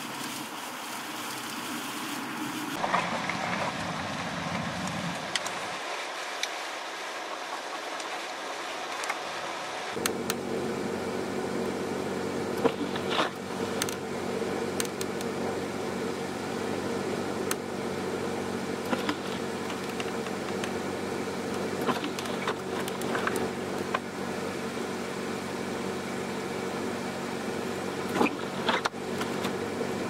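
Road and wind noise from driving a snow-covered highway in a blizzard; then, from about ten seconds in, a sedan's engine running at a steady speed while it sits stuck in deep snow, with scattered short clicks.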